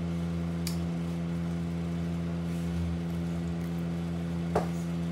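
Steady low machine hum, like a fan or air-conditioning unit running, with two light clicks: one about a second in and one near the end.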